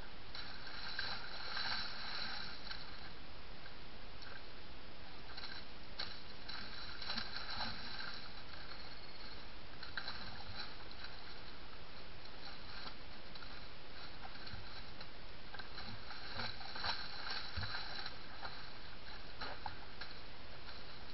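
Red deer stag wallowing in a muddy puddle during the rut, pawing and thrashing with its antlers: wet sloshing and splashing of mud and water comes in spells, over a steady background hiss. The wallowing is rutting behaviour that marks territory.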